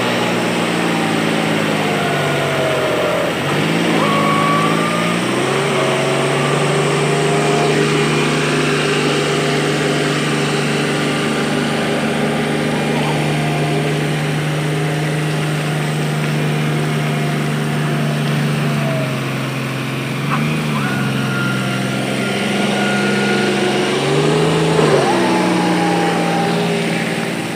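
John Deere 5055 E tractor's three-cylinder diesel engine working hard under load, pulling a loaded trolley through deep mud. Its pitch sags and picks back up a few times as the engine bogs and is pushed again.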